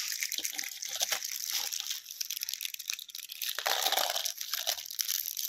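Plastic-foil candy packets crinkling as they are handled and torn open. Light clicks come from small hard candy balls dropping into a glass bowl.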